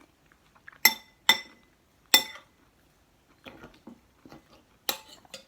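Cutlery clinking against a dish: three sharp ringing clinks in the first couple of seconds, a softer clatter, then another clink near the end.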